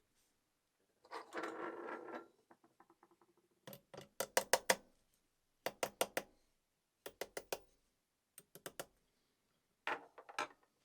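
Small metal parts and tools clicking and clinking in quick clusters of three to six sharp clicks, after a brief scraping rustle about a second in.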